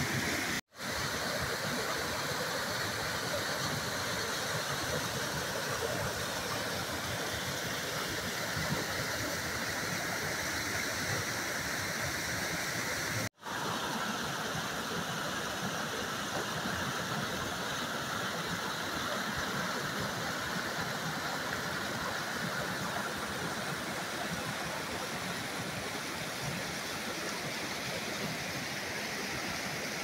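Steady rushing of a small waterfall and beck in spate, brown floodwater pouring over limestone ledges into a swollen river. The sound cuts out for an instant twice, about half a second in and about 13 seconds in.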